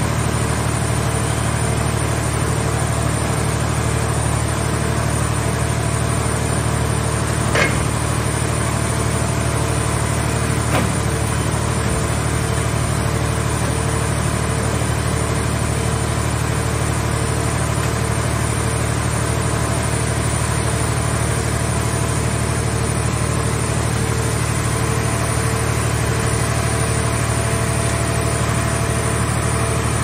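Portable car shell scrap baler's hydraulic power unit running steadily with a continuous low hum, with two brief knocks about eight and eleven seconds in.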